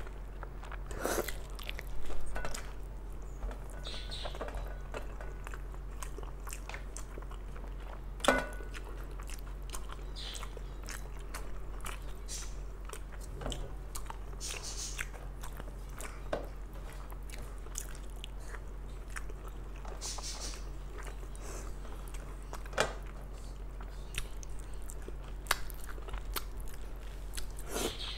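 Close-up eating sounds of a person chewing rice and mutton curry: soft wet chewing and lip smacks with scattered sharp clicks, the loudest about two seconds in, over a steady low hum.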